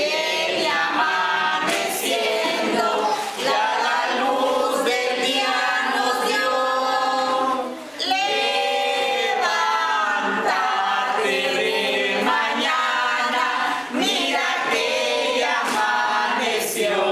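A congregation of men and women singing a hymn together, unaccompanied, with hand clapping.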